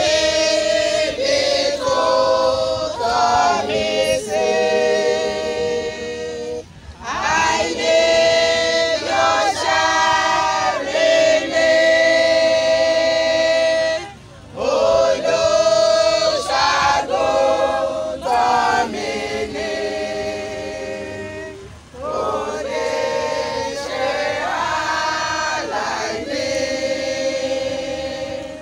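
A women's choir singing a hymn unaccompanied, in four long phrases with short breaks between the lines.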